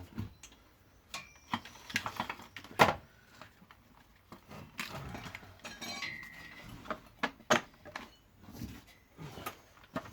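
Intermittent metallic clinks, knocks and clatter of tools and parts being handled, with one sharper knock about three seconds in.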